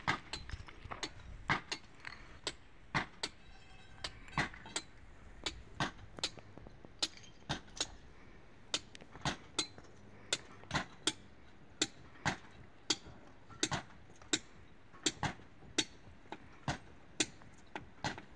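Hand hammer blows on stone at a quarry face: sharp clinks, about two to three a second in short runs, as building stone is broken and dressed by hand.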